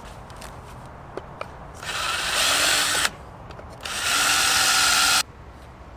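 Cordless drill boring into a black ABS pipe end cap, run in two bursts of a little over a second each; the second burst cuts off suddenly.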